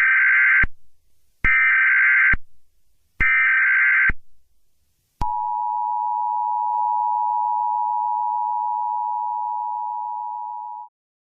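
Emergency Alert System signal: three short bursts of SAME header data tones, evenly spaced, then the steady two-tone EAS attention signal (853 and 960 Hz together) for about six seconds, which cuts off abruptly. This is the standard sequence that opens a new alert message.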